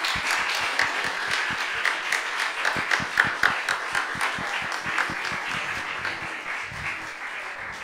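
Audience applauding, a dense patter of many hands clapping that eases off gradually toward the end.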